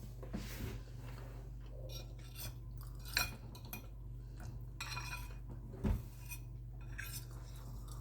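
Cutlery clinking and scraping against a plate during a meal: scattered light clicks, with sharper knocks about three seconds in and a louder one about six seconds in.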